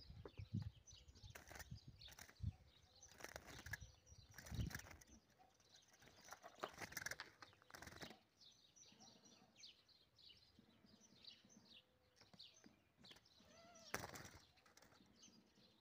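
Young caged finches chirping faintly in short high notes, with a few soft flutters and knocks of wings in the cage.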